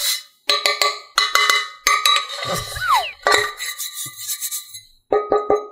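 Metal muffin tin clinking and clanking as it is handled and turned over: a string of ringing metallic knocks, with a quick run of them near the end, over background music.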